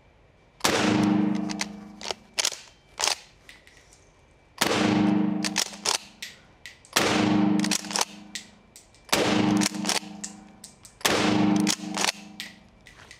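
Mossberg 590S 12-gauge pump-action shotgun firing mini-shell 1-ounce rifle slugs: five loud shots about two seconds apart, each ringing on for about a second. After each shot come a few sharp clacks as the pump is racked to chamber the next shell.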